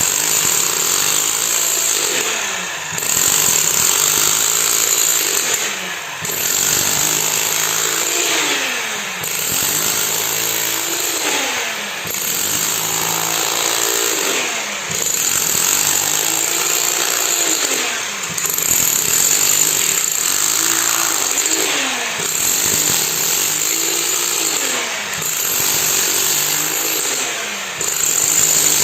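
Engine-driven concrete machine running under a repeating load. About every three seconds its tone falls and the level dips briefly, with a high whine cutting in and out.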